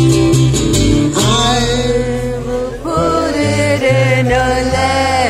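Live band music: strummed acoustic guitar over a steady bass, joined about a second in by a singer holding long, wavering sung notes.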